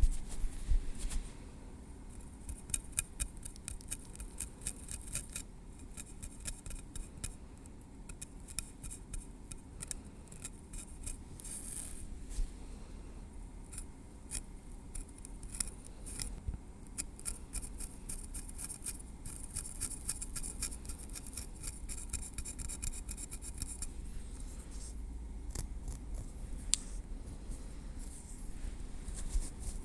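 Tweezers working at a scalp through the hair, close to the microphone: many fine, crisp ticks and light scratches, thick in some stretches and sparse in others.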